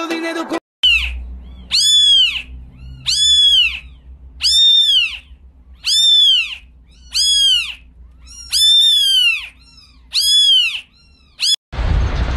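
A domestic cat meowing over and over: about nine high-pitched meows, each rising then falling in pitch, roughly one a second.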